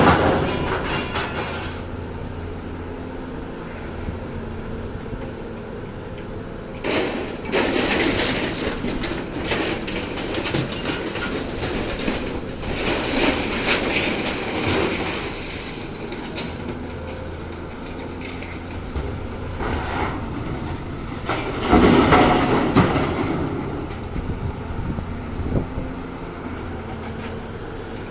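Excavator engine running steadily while scrap metal is loaded, with three spells of clanking and scraping metal; the loudest comes about three quarters of the way through.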